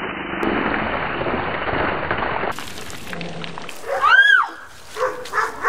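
A bucket of ice water pouring and splashing down over a person's head for about two and a half seconds. About four seconds in comes one high yell that rises and falls in pitch.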